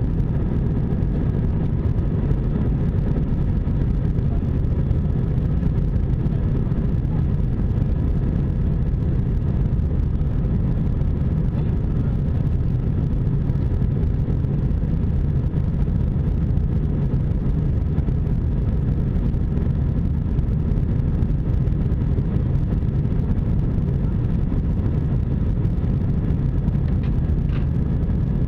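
Steady low rumble of an Airbus A320's engines and airflow heard inside the passenger cabin, with faint steady whining tones above it.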